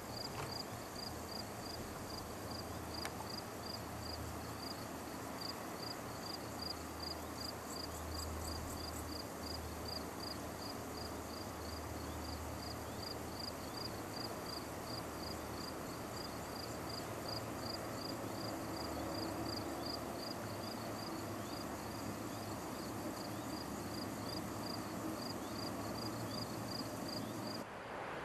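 Insect chirping steadily, about twice a second, over a low rumble and faint hiss; the chirping stops abruptly near the end.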